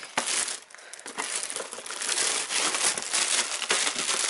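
Clear plastic packaging bag crinkling and rustling as it is handled, a dense run of small crackles that goes on almost without a break.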